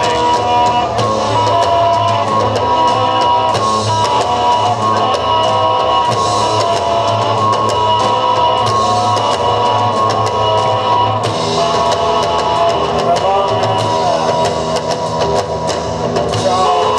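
Live rock band playing loudly, with electric guitars and a drum kit.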